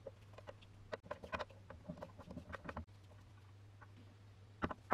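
Screwdriver turning a small screw into the metal pan of a vintage balance scale: a run of light metallic clicks and scrapes, then a few sharper knocks near the end as the metal piece is handled.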